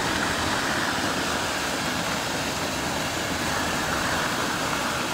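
Rain-swollen ravine stream of muddy runoff rushing steadily, a constant even rush of water with no breaks.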